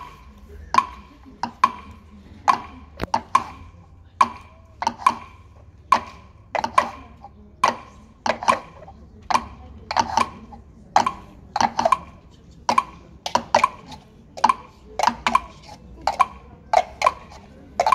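Plastic cups rapped and set down on a stage platform by several people playing a cup rhythm game, a steady pattern of sharp knocks about two a second with some quick doubled strokes.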